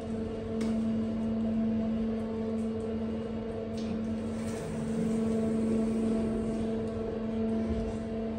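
Steady machine hum at one fixed pitch, like a running electric motor, with a few faint knocks.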